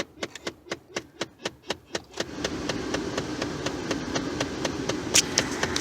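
Rapid, even clicking from behind a Ford F-150's dashboard, about four clicks a second, which the owner suspects is a failing blend door actuator, with the air coming only out of the defrost vents. About two seconds in, a steady rush of the blower fan comes up under the clicking.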